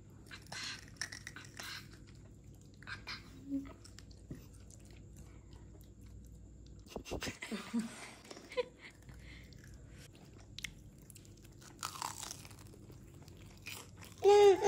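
Crunchy chewing and biting of a breadcrumb-coated fried corndog, in short scattered bursts.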